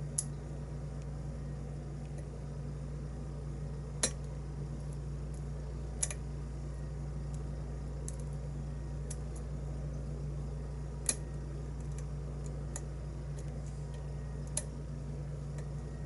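Small metallic clicks and ticks of a lock pick and tension wrench working the pins of a brass lock cylinder: five sharper clicks scattered through, fainter ticks between. A steady low hum runs underneath.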